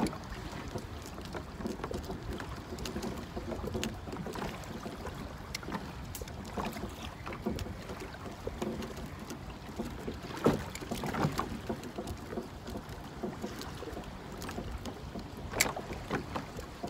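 Water lapping against the hull of a small inflatable boat, with wind rumbling on the microphone. A few short knocks come in, two close together a little past halfway and one more near the end.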